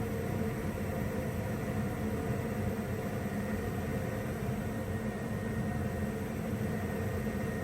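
Gas furnace running steadily: the rush of its blower fan with a low hum and a faint high whine.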